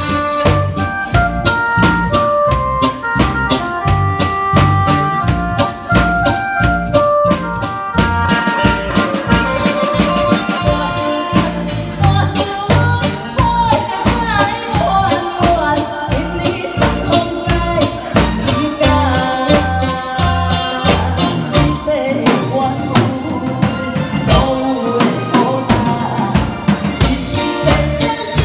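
A live band with drum kit, electric guitars and keyboard plays a song to a steady beat. An instrumental passage led by held keyboard notes gives way, about twelve seconds in, to a woman singing into a microphone over the band.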